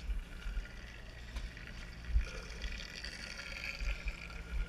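Water washing and splashing alongside a sportfishing boat, over the steady low hum of the boat's engine. A single thump comes about two seconds in.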